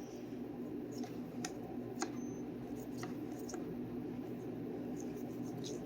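A few faint, sparse clicks from trading cards being handled and flipped through, over a steady low hum.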